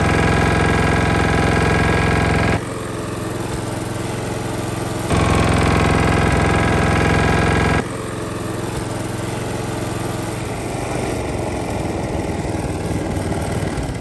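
Small four-stroke lawn mower engine running, cut back and forth between two recordings. Twice, for roughly three seconds at the start and again about five seconds in, a louder clip of the engine knocking from a worn connecting-rod bearing after being run low on oil. Between and after these, quieter steady running at low RPM with the rod clearance brought back to spec, and no knock audible over the engine.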